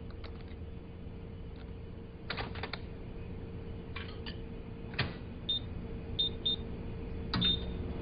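Microwave oven being handled and set: scattered clicks and a knock from the door and controls, then four short high beeps from the keypad over a faint steady hum.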